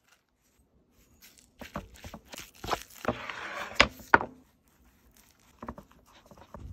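Food-preparation handling sounds on wooden kitchenware: a run of knocks and a rustling scrape lasting about three seconds, with two sharp knocks from the wooden bowl being handled over the cutting board. Near the end come faint soft sounds of a knife working into a raw tomahawk steak.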